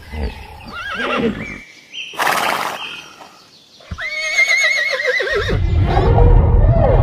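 Horse whinnying: a high, quavering neigh about four seconds in, among shorter calls, followed by a low rumble.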